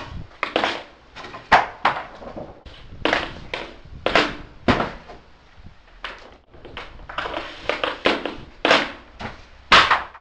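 Ice hockey stick blade knocking a puck around on a plastic shooting pad: a quick, irregular run of sharp clacks, several a second, with a few louder cracks.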